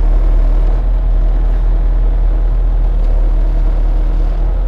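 Bobcat T300 compact track loader's diesel engine running steadily, a loud, even low hum.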